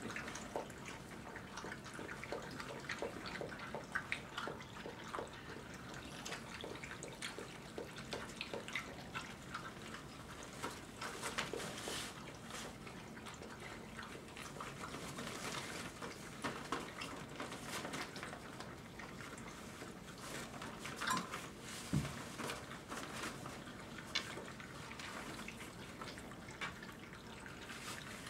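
Five-week-old Dogo Argentino puppies lapping and slurping together at a dish: a busy, irregular patter of small wet clicks.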